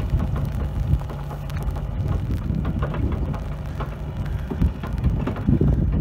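Mini excavator's diesel engine running with a steady low hum, under an irregular crackling patter.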